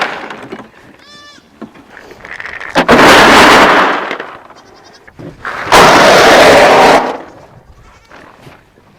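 Goats bleating loudly at close range, impatient for feed: two long calls about three seconds apart, with a fainter, higher wavering call about a second in.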